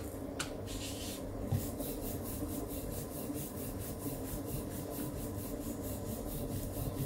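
Wooden rolling pin rolling out thepla dough on a wooden board, with a rhythmic rubbing of about four strokes a second from about a second and a half in.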